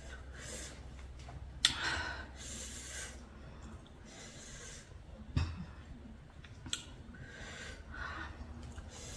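Eating sounds from someone working through a spicy seafood salad: breaths and sniffs through the nose while chewing, with a few sharp clicks spread through.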